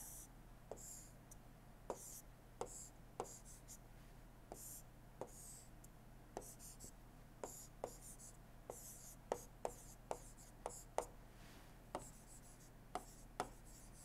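Stylus writing on a pen tablet: faint, irregular light clicks as the tip taps down, with brief scratchy hiss during the strokes.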